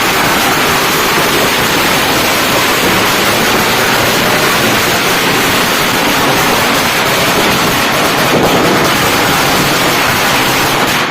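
A firework burning with a steady, loud hiss that stops suddenly near the end.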